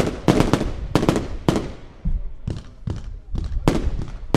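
Consumer fireworks battery firing: a rapid series of sharp bangs from shots bursting overhead, several in quick succession at the start, a quieter stretch of smaller bangs in the middle, then loud bangs again near the end.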